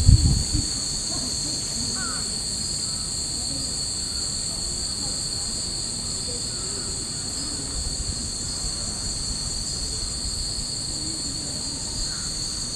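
Cicadas droning in the trees, a steady shrill buzz that never lets up, with wind rumbling on the microphone right at the start.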